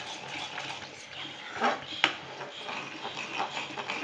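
A spoon stirring and scraping a thick, bubbling tamarind-jaggery paste in a kadai. There is a brief louder sound about one and a half seconds in, then a sharp click of the spoon against the pan.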